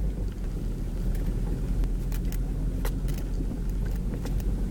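Steady low rumble of a car's engine and tyres heard from inside the cabin while driving, with a few light clicks scattered through it.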